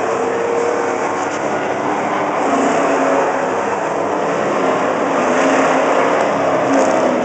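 A field of late-model stock cars racing around an oval, their engines running hard in a loud steady drone that swells as cars pass close by.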